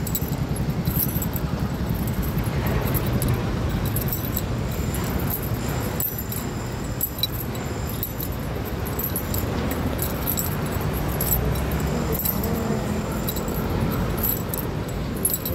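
City street ambience heard while walking: a steady low rumble of traffic, with light, irregular high jingling and clicking throughout.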